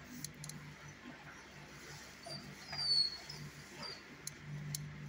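A dog whimpering: a few short, high-pitched squeaks, the loudest about three seconds in, with a few light clicks and a steady low hum behind.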